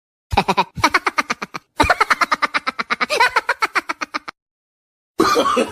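Rapid, pulsing laugh sound effect in three bursts, a short one, then a longer one, then a long run of quick ha-ha pulses, about ten a second. A voice starts up near the end.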